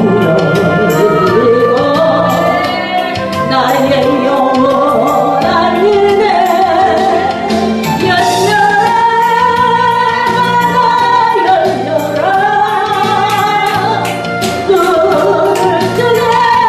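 Praise song sung by a solo voice with band accompaniment and a steady beat; the melody glides and holds long notes.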